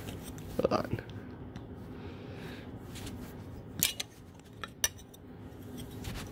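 Small clicks, taps and rustling of a metal model airplane and its clear plastic display stand being handled, with a sharper click about four seconds in and another a second later.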